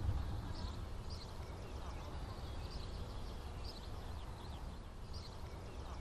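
Outdoor country ambience: small birds chirping in short, repeated high calls over a steady low rumble.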